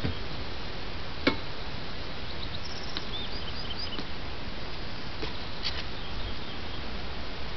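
Outdoor ambience: a steady rushing hiss, a single sharp click about a second in, and a few short, high bird chirps around three seconds in.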